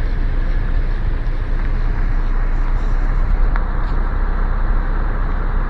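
Steady low rumble and noise of a car, heard from inside its cabin.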